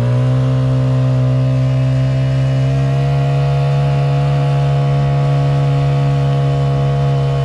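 Honda GX50 four-stroke single-cylinder outboard running under way, its engine speed stepping up right at the start and climbing a little over the next few seconds before holding steady. It runs smoothly, not skipping a beat.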